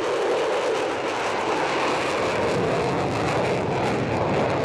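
F-16 Fighting Falcon fighter jet flying past with its jet engine running: a steady, dense rushing jet noise.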